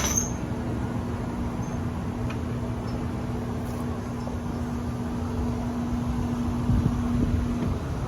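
A steady machine hum, one held tone over a low rumble, that cuts off shortly before the end.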